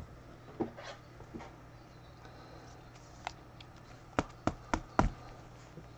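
A few light clicks and taps, with a quick run of four sharper clicks about four to five seconds in, over a faint steady hum.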